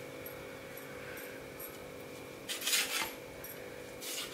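A kitchen knife cutting bread into small pieces on a steel plate: a short run of scrapes and taps of the blade against the plate about two and a half seconds in, and one more near the end, over a faint steady hum.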